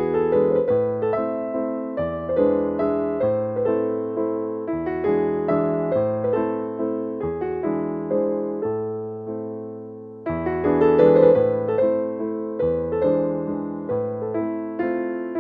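Background piano music: a melody of struck notes over low bass notes, easing off briefly past the middle before a louder phrase comes back in.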